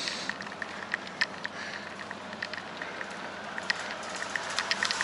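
Bicycle in motion: steady wind and road noise with scattered sharp, irregular ticks and clicks.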